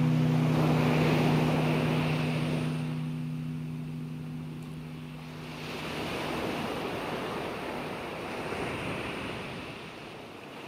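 Ocean surf washing up a beach, swelling twice, while the song's final held chord dies away over the first few seconds.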